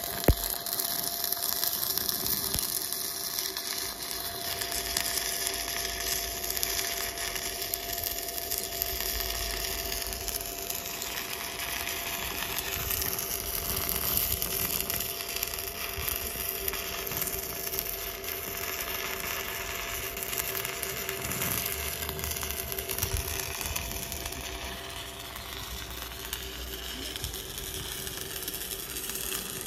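Stick (MMA) welding arc crackling steadily as a coated electrode burns along a steel joint, with a steady electrical hum beneath; a sharp crack right at the start as the arc is struck.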